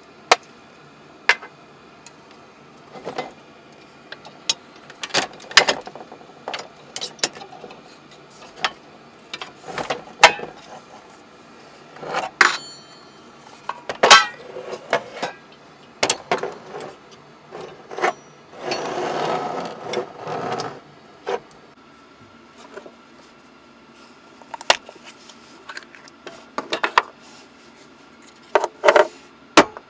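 Small objects being handled: scattered clicks, taps and knocks at irregular intervals, with a stretch of noise lasting about two seconds a little after the middle.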